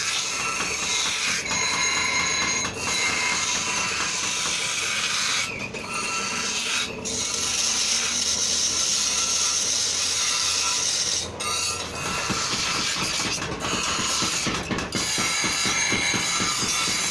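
Steel trowel blades being ground on the abrasive wheels of a double-ended bench grinder: a continuous harsh rasping hiss of metal on stone. It breaks off briefly a few times, around five and a half, seven, eleven and fourteen seconds in, when a blade is lifted off the wheel.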